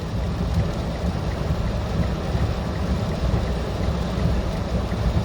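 Steady rumble of a car driving through heavy storm rain, with tyre, road and rain noise heard from inside the car.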